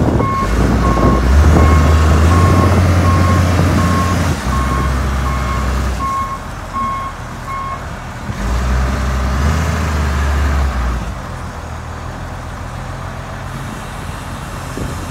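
Case 721B wheel loader's engine running under throttle while its backup alarm gives a steady series of evenly spaced beeps for the first seven or eight seconds, the sign that the loader is reversing. The engine picks up again briefly partway through, then settles to a lower, steady idle near the end.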